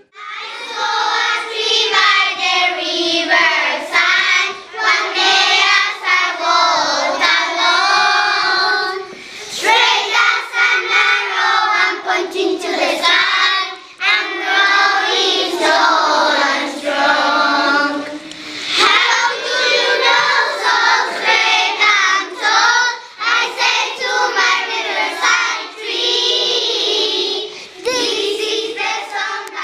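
A group of children singing together, a school choir song.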